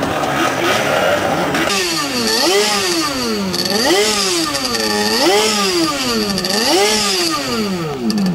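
Racing hydroplane's outboard engine being run on the bank: rough and uneven for the first two seconds, then revved up and down four times, about once every second and a half.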